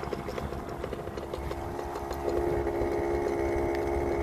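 The motor of a small ride-on vehicle running along a path: a steady whine over a low rumble, with faint ticks in the first half. About two seconds in it gets louder and rises slightly in pitch as the vehicle speeds up.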